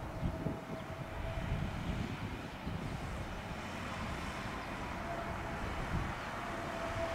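Airbus A320neo-family airliner with CFM LEAP-1A engines on final approach: a steady engine drone with a thin whine, growing slightly louder near the end, under gusty wind rumbling on the microphone.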